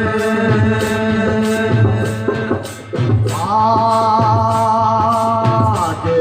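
Devotional bhajan music to the Mother goddess: long held melodic notes over a steady percussion beat with regular ticks. The music drops briefly about three seconds in, and then the held melody comes back.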